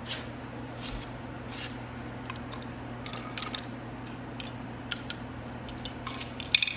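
Scattered light metallic clicks and clinks of a wrench turning a motorcycle's rear-axle chain adjuster bolt to take up chain slack. The sharpest cluster of clicks comes near the end, over a steady low hum.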